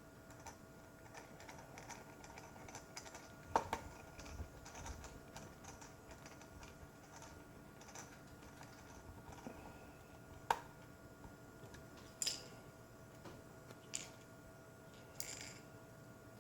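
Small screws being fitted into a laptop: light ticks and taps of a screwdriver, screws and hands on the plastic chassis, with a few sharper clicks spaced a couple of seconds apart.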